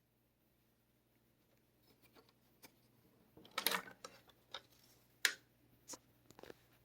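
Scattered faint mechanical clicks and clunks from handling the Yamaha K-550 cassette deck's controls and transport, the sharpest a little past halfway, over a faint steady hum.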